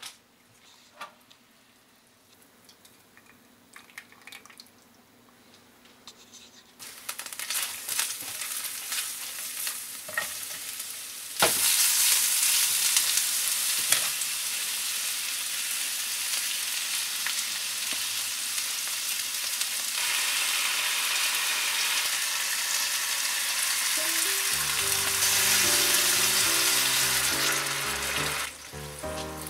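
Sliced onions and garlic frying in hot oil in a skillet: a loud, steady sizzle that starts suddenly about eleven seconds in, after a quieter stretch of light clicks. Near the end the sizzle drops away as liquid goes into the pan, and background music comes in.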